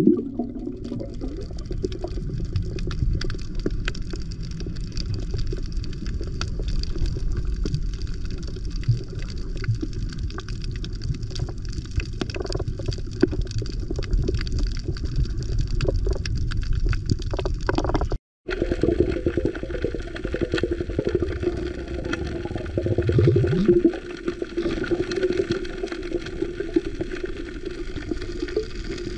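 Muffled underwater sound picked up by a camera filming a reef: low rushing water noise with scattered clicks and crackles. The sound drops out for a moment about two-thirds through, and a steady low hum runs after that.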